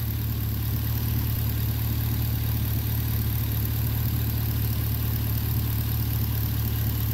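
Chevrolet Caprice PPV's L77 6.0-litre V8 idling steadily, heard from the open engine bay. It is running on thick 10W-60 oil with the AFM cylinder deactivation disabled, a stopgap for a failing roller lifter that chirps.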